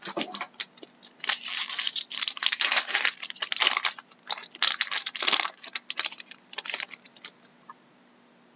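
A foil wrapper of a 2012-13 Fleer Retro hockey card pack being torn open and crinkled by hand: a dense run of crackling rustles. It stops about seven seconds in.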